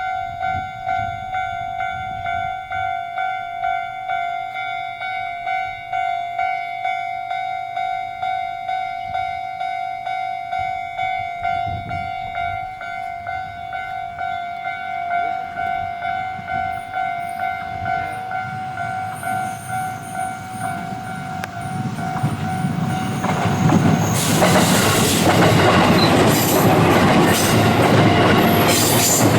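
Japanese railway level-crossing alarm ringing its electronic bell tone in a steady, even beat. From about twenty-two seconds in, a train runs over the crossing, its wheels and running gear rattling loudly over the rails, while the alarm keeps ringing.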